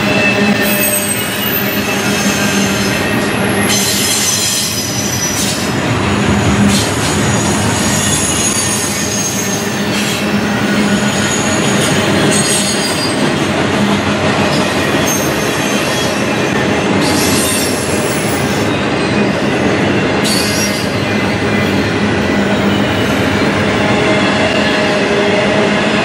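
Double-stack intermodal well cars rolling past, steel wheels on the rails making a loud, steady rumble. High-pitched wheel squeals come and go over it.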